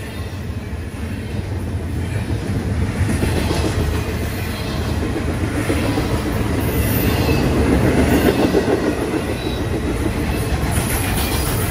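Double-stack intermodal freight train's well cars rolling past: a steady rumble of steel wheels on rail with clickety-clack over the joints, growing louder through the first several seconds.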